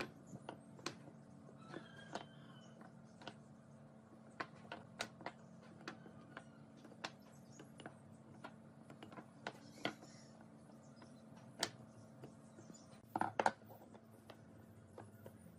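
Short wooden blocks being set down one by one and tapped into place inside a wooden frame on a workbench: irregular light wooden clicks and knocks, with a quick cluster of louder knocks near the end, over a faint steady hum.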